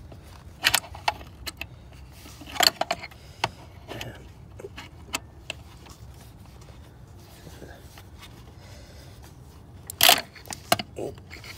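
Ratchet and Torx socket working on a serpentine-belt tensioner: scattered sharp metal clicks and clinks, a quick cluster about two and a half seconds in and the loudest clank about ten seconds in.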